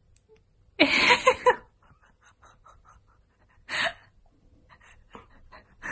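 A short, rough burst of voice about a second in, then a breathy huff just before four seconds, with faint clicks between.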